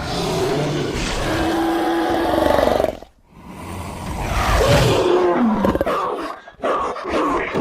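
Designed creature roars for the extinct giant gelada baboon Theropithecus oswaldi, mixed from leopard and baboon calls: a long roar for about three seconds, a short gap, then a second roar that swells and falls in pitch, and a brief third call near the end.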